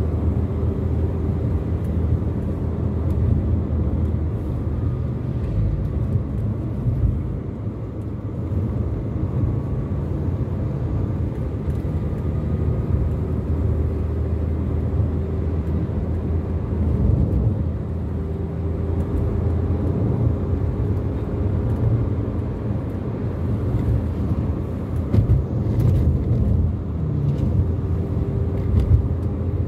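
Car driving at a steady speed, heard from inside the cabin: a continuous low drone of engine and road noise, with a few faint knocks near the end.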